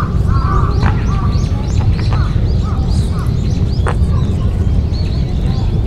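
Many birds chirping and calling, with short quick notes scattered throughout, over a loud steady low rumble.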